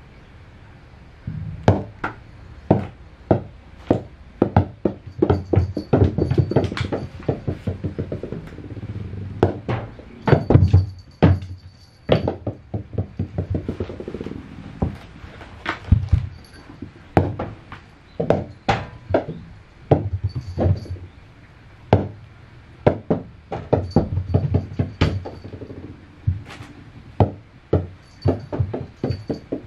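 Small rubber super ball bouncing and skittering on wooden floorboards as a kitten bats and chases it: a rapid, irregular run of sharp clicks and knocks, mixed with dull thumps of paws landing on the boards.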